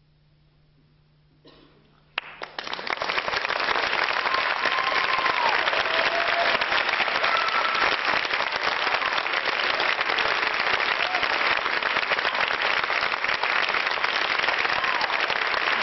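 Theatre audience applauding at the end of a dance performance. The applause starts about two seconds in, after a near-silent pause with a faint low hum, builds within a second and then goes on steadily, with a few brief calls from the crowd.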